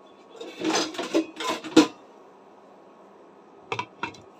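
A glass cooking lid is handled with rattling and clattering for about a second and a half, then set down on the rim of a metal frying pan with two sharp clinks near the end.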